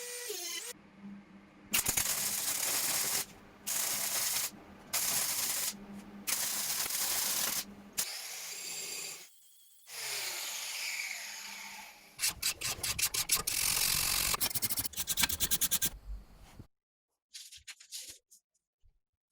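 A small power tool abrading metal, heard in several short bursts of about a second each that stop abruptly, with a low motor hum under each. Near the end come quick repeated rubbing strokes, then a few faint ticks.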